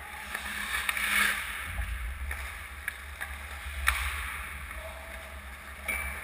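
Ice hockey skate blades scraping and swishing on rink ice, with a louder scrape about a second in and a sharp clack about four seconds in, over a steady low rumble.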